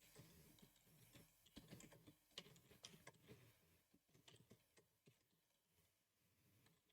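Faint computer keyboard typing: irregular key clicks.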